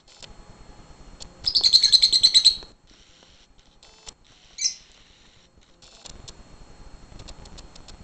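Lovebirds chirping: a rapid run of high-pitched chirps lasting about a second, starting about a second and a half in, then a single chirp a few seconds later. Faint clicks and rustling are heard in between and toward the end.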